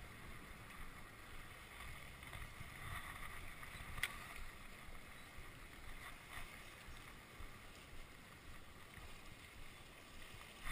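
Faint, steady rush of a creek riffle, with one sharp click about four seconds in.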